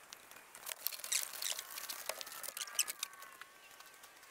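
Faint rustling and crinkling of a tarp being folded by hand, with scattered light clicks. From about a second in, a faint thin wavering tone runs underneath.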